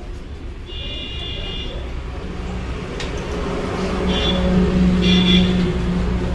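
Passing road traffic: a vehicle engine running and growing louder, with short horn toots about a second in and again twice around four to five seconds, and one sharp click near three seconds.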